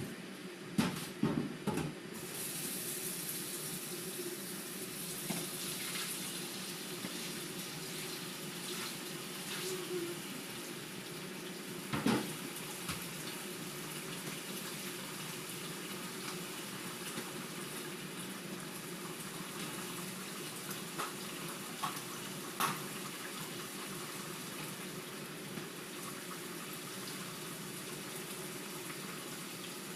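Water running steadily while a tiled kitchen floor is rinsed, with a few sharp knocks in the first two seconds, around the middle and again near the end.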